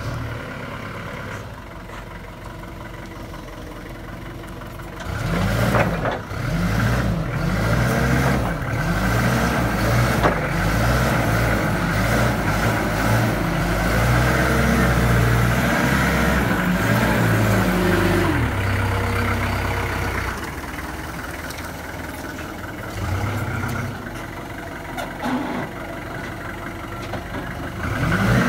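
Isuzu diesel engine of a Heli 3.5t all-terrain forklift running as it drives: fainter at first, revving up in several rises and falls about five seconds in as it comes close, running loud and steady through the middle, easing off about twenty seconds in, and revving again near the end.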